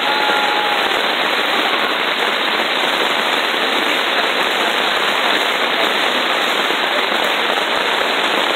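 Heavy rain pouring down, a steady dense hiss with the crackle of drops pelting the tarp overhead.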